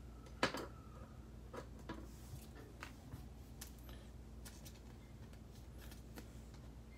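Faint clicks and rustles of trading cards and a clear plastic card holder being handled, with one sharper click about half a second in, over a faint steady low hum.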